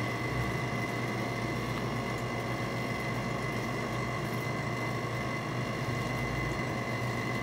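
Evaporative swamp cooler running with a steady motor and blower hum, while water from a garden hose sprays onto its pads through the side louvers.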